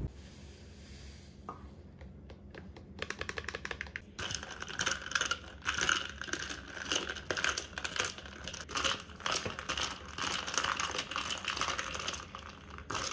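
Quiet for the first couple of seconds, then a quick run of small sharp clicks, followed by a dense, uneven run of clicking and crinkling handling noise.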